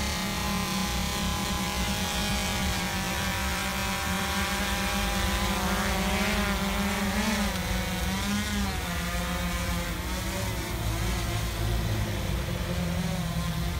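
Quadcopter drone's propellers buzzing steadily as it flies a crab trap on a line. The pitch wavers up and down in the middle and drops slightly as the drone comes down toward the ground.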